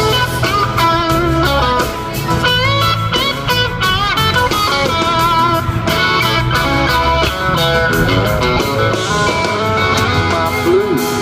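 Live band playing an instrumental break, led by an electric guitar solo with bent and wavering notes over bass and drums.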